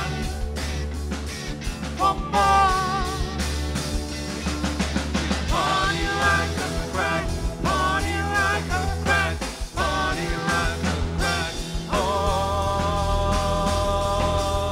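Live rock band playing with electric guitar and bass guitar over a steady low bass line and a rhythmic high ticking. A wavering, bending lead line settles onto a long held note about twelve seconds in.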